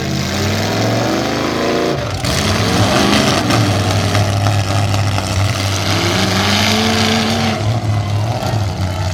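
Demolition derby cars' engines revving hard, the pitch climbing near the start and again about six seconds in, over a steady wash of noise.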